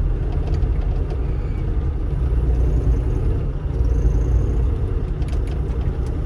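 Diesel engine of a Bobcat E35 mini excavator running steadily under work, with a few faint knocks near the end.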